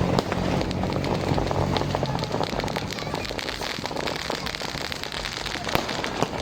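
Fireworks crackling: a dense, continuous rattle of many small pops, with a couple of sharper, louder cracks near the end.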